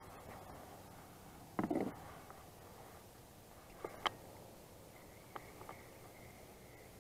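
Faint sounds of handling on a fishing boat. A short splash comes about one and a half seconds in as a released largemouth-type bass drops back into the water. Then a few light clicks come from the spinning reel as it is picked up.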